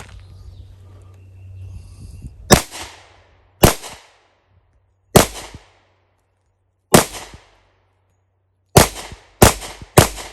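Seven pistol shots from a Rock Island all-metal 10mm double-stack handgun. The first comes about two and a half seconds in, the next four are spaced one to two seconds apart, and the last three are quicker, about half a second apart.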